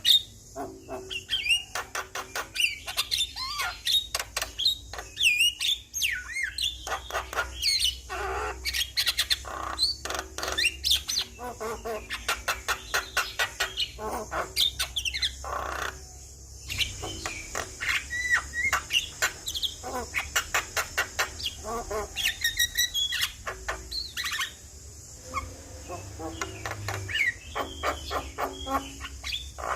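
Javan myna (jalak kebo) singing: long runs of rapid, harsh clicking chatter mixed with whistled notes that glide up and down, with short pauses between phrases.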